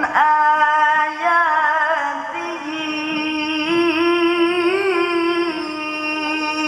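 Male Quran reciter (qari) singing a long, drawn-out melodic phrase into a microphone in the ornamented tilawah style. The held note waves up and down in pitch through its middle.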